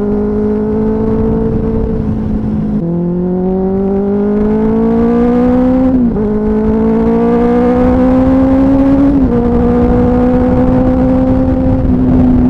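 Motorcycle engine accelerating up through the gears: its pitch climbs steadily and drops at each upshift, three times, then holds nearly steady at cruising speed. A low rush of wind and road noise runs underneath.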